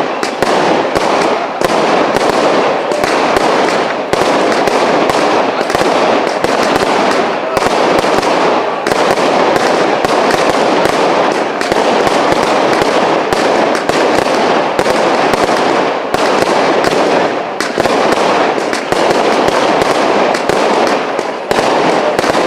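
Fireworks cake (multi-shot battery) firing a rapid, continuous barrage of shots and star bursts, with many sharp bangs a second overlapping into one dense crackling roll.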